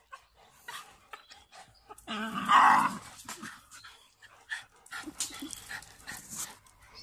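Dogs playing over a rubber ball: one dog gives a loud play growl lasting about a second, about two seconds in, amid panting and short scuffling sounds.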